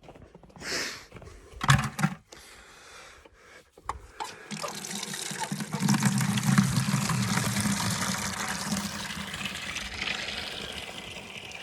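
Water running hard into a 5-gallon bucket as it is refilled, a steady rushing that starts about four and a half seconds in. Before it, a few knocks and clatters from handling the bucket and tap.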